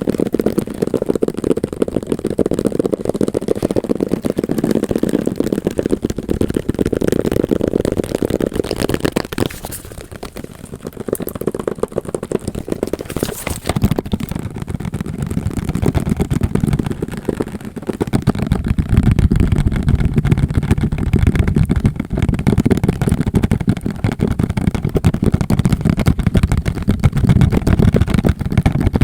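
Very fast tapping and hand sounds close to the microphone, sped up so the taps run together into a dense, continuous stream. It thins out briefly about a third of the way in and becomes heavier and deeper over the last third.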